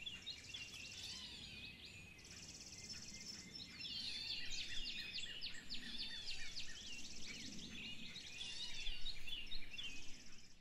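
Woodland birdsong: several small birds chirping and whistling over one another, with high buzzing trills coming in every couple of seconds, getting louder from about four seconds in.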